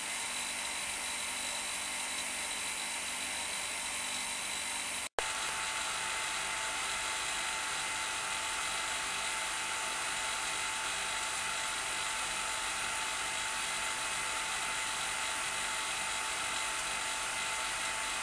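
Electric vacuum pump running steadily with a high whine and hiss, holding vacuum on a resin-infusion bag. The sound drops out briefly about five seconds in, then carries on with a second, lower whine added.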